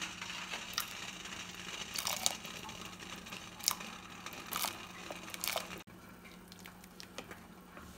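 Dried black raisins poured from a bowl into a steel pot of hot spiced water, dropping in with several short splashes and knocks over a steady low hum.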